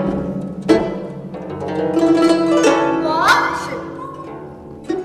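Solo guzheng, the Chinese plucked zither, played with both hands: plucked notes ringing over a held low note, with a sharp accented pluck about a second in and a quick run of notes bending upward in pitch about three seconds in.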